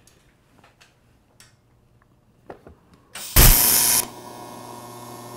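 A few faint clicks, then a TIG welding arc strikes about three seconds in with a loud crackling hiss for about half a second and settles into a steady electric hum as a tack weld is laid on tubing with filler rod.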